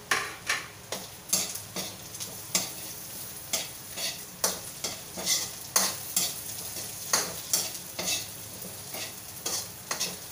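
Metal spatula scraping and knocking against a metal wok as chicken is stir-fried, in quick irregular strokes, over a steady sizzle of the frying meat.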